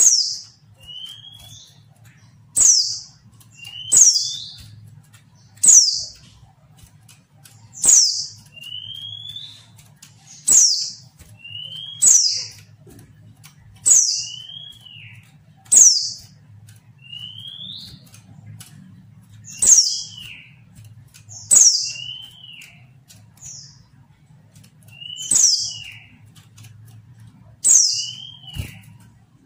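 Female white-eye (pleci) calling over and over, about every one and a half to two seconds: each call a sharp high note sweeping downward, followed by a short lower note that rises and falls. This is the female's call that draws male white-eyes to answer and sing.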